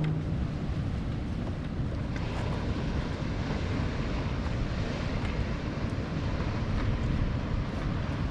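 Wind buffeting the microphone over the steady wash of ocean surf breaking on the rocks below.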